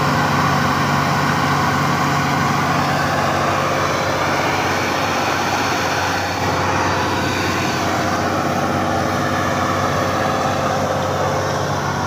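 A Vögele Super 1400 asphalt paver's diesel engine running steadily at a constant speed, a continuous drone.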